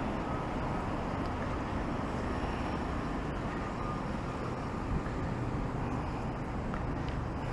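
Steady road traffic noise: cars passing on a road.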